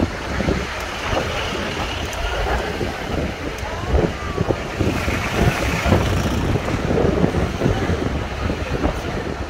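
City street traffic and wind buffeting the microphone on the open top deck of a moving double-decker tour bus, over a steady low rumble, with faint passengers' voices in the background.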